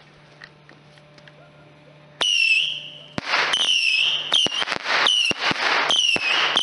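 Saturn missile firework battery firing: after about two seconds of quiet, whistling rockets launch one after another, each a short whistle that drops slightly in pitch over a hissing rush.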